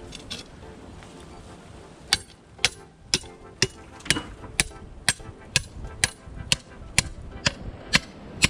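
A hand tool striking repeatedly: about fourteen sharp, evenly spaced blows, roughly two a second, starting about two seconds in.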